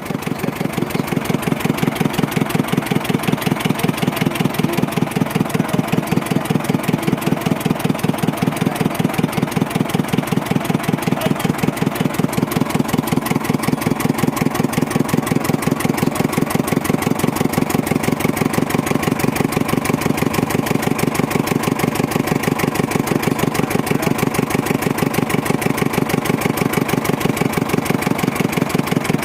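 Fishing boat's inboard engine running steadily with an even, rapid pulse while the boat is under way; it grows louder over the first second, then holds.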